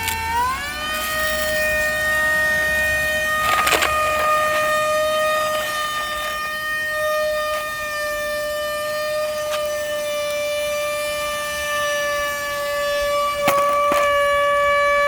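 Haimeec cordless stick vacuum's motor running with a loud, steady high whine, its pitch rising in the first second and then holding, sagging slightly, with a few clicks along the way. The switch is jammed on, and the motor is struggling: the owner says it is dying and shot, with no suction.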